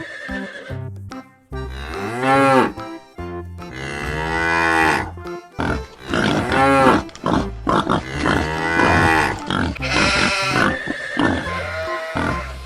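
Cow mooing in several long calls, over background music.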